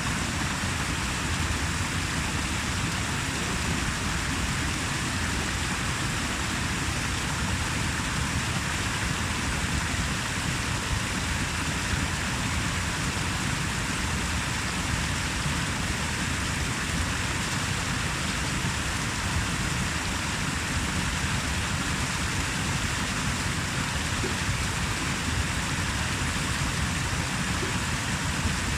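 Running water, a continuous even noise that does not change.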